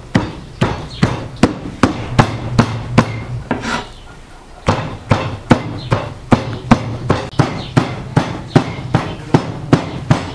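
Meat cleaver chopping raw meat on a round wooden cutting board: steady, rapid blows at about two and a half a second, with a pause of about a second partway through.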